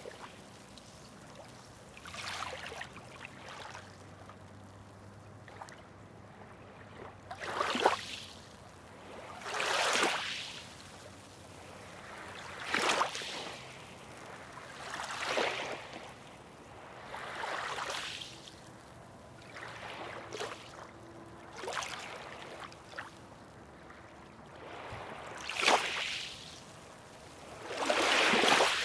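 Small waves breaking and washing in, one after another, about every two to three seconds: each wash swells with a splash and then fades back to a soft background hiss.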